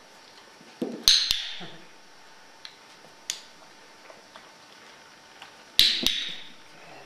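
Hard plastic treat canisters knocked over by a dog, clattering against a plastic step platform: two bursts of sharp knocks, one about a second in and one near the end, each with a short rattle, and a few light taps between them.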